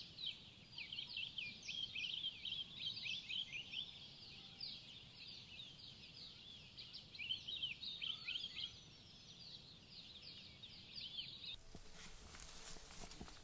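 A flock of small birds chirping and twittering together: many rapid, overlapping high chirps that sweep downward. Near the end the birdsong cuts off abruptly, leaving a low hiss with a few faint clicks.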